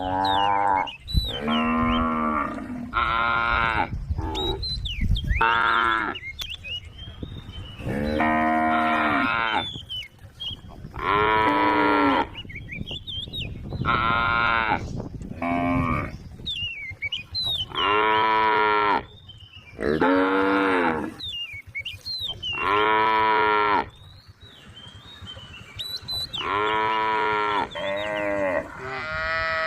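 Cattle mooing over and over, about a dozen calls of a second or so each at differing pitches.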